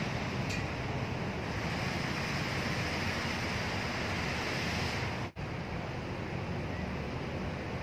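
Steady rushing noise of a river in flood, with no distinct events; the sound drops out for an instant about five seconds in.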